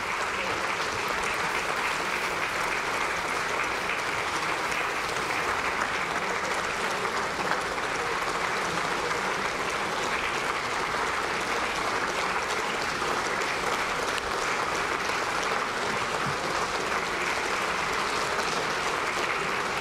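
Sustained applause from a large assembled audience of lawmakers: dense, continuous clapping at a steady level.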